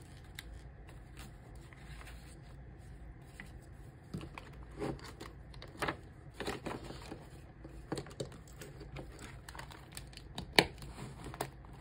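Paper banknotes and a clear plastic binder pocket rustling and crinkling as bills are folded and slipped into the pocket, with scattered soft taps and one sharp click near the end.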